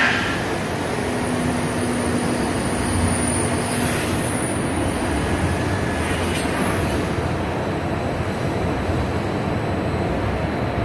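A 200–500 L industrial mixer running, its agitator arms turning in the stainless steel bowl, giving a steady mechanical running noise.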